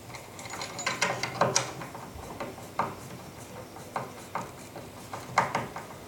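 Screwdriver driving a screw through a door latch faceplate into the timber, with irregular clicks and short scrapes as the screw is turned in.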